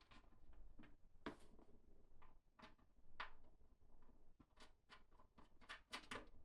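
Faint, scattered small clicks and knocks, bunching together near the end, like objects being handled.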